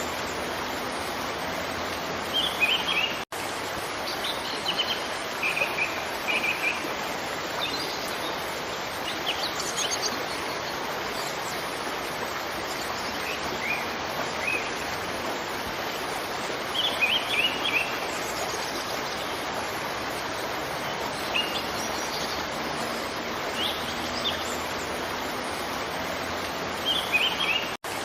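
Waterfall rushing steadily, with small birds chirping in short bursts every few seconds over it. The sound cuts out for a split second twice, about three seconds in and near the end.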